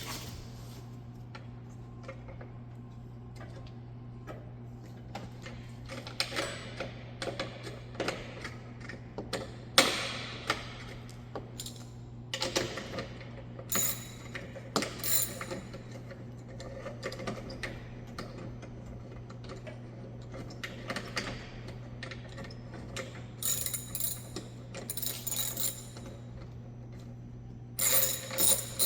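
Irregular metallic clicks, clinks and rattles of bolts and bumper hardware being handled and started by hand, over a steady low hum. The clicking thickens into a busier run of clicks near the end.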